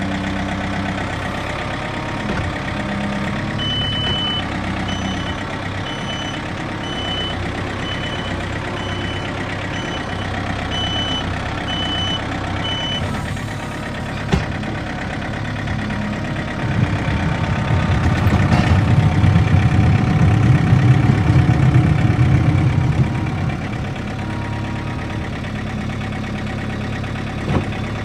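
Backhoe's diesel engine running steadily while a backup alarm beeps at an even pace, a little over once a second, for about nine seconds. A single sharp knock follows, then the engine works harder and louder for about six seconds under load before settling back.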